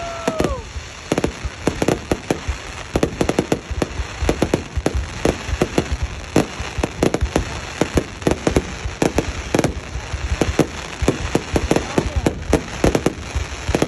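Aerial fireworks going off in a rapid, irregular string of bangs and crackles, many reports overlapping.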